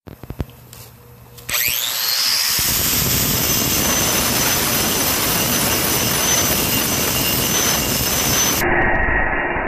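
Metabo angle grinder with a 4.5-inch diamond wheel switched on after a few light clicks, spinning up with a rising whine, then grinding wet stone with a loud, steady noise. Near the end the sound turns duller.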